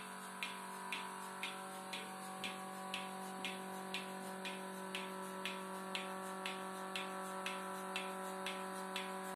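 Bucket milking machine running: the pulsator on the milk-can lid clicks evenly about twice a second over the steady hum of the vacuum pump, the normal working rhythm of the machine while milking.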